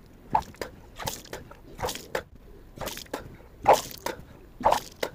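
A person retching over and over and throwing up gulps of warm salt water that splash out, about six heaves a second apart. This is deliberately induced vomiting in the yogic cleansing practice kunjal kriya (vaman dhauti), brought on by pressing two fingers against the back of the tongue and palate.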